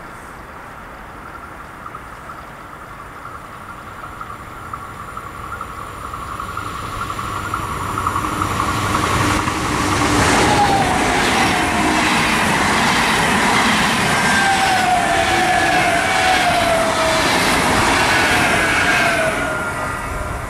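BLS MUTZ double-deck electric multiple unit (Stadler KISS) approaching and passing at speed. The rush of wheels on rail builds to a loud passage with whining tones that slide down in pitch and a run of regular wheel clicks, then drops off sharply as the last car goes by near the end.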